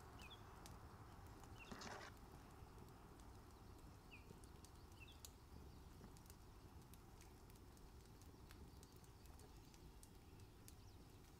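Near silence: faint outdoor ambience with a few short, faint bird chirps and scattered faint clicks.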